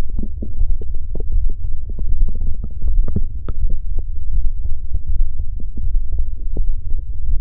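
Human stomach growling and gurgling: a steady deep rumble with many quick bubbling pops and squelches on top.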